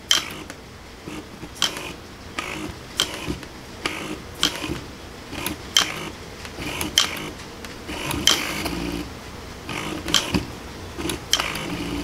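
A 12 V windshield wiper motor, rigged as a high-torque steering servo, whirs back and forth in short runs as the remote control's steering wheel is turned left and back, with sharp mechanical clicks roughly every second and a half.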